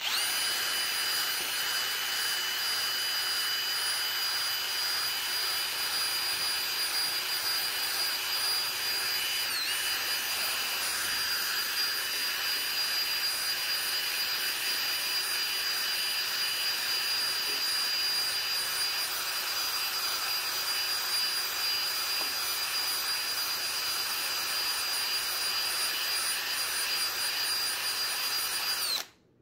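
Cordless drill (Kobalt 24 V brushless) spinning a brass wire wheel brush against the cylinder bores of a BMW M54 aluminium engine block: a steady high motor whine over the scrubbing of the wire bristles. The pitch dips briefly about ten seconds in, as the brush bears harder on the metal, and the drill stops just before the end.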